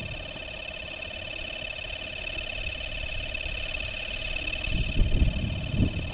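Carp bite alarm sounding one continuous, slightly wavering electronic tone, the signal of a fish taking line on a run. Low rumbling underneath, with a few dull thumps near the end.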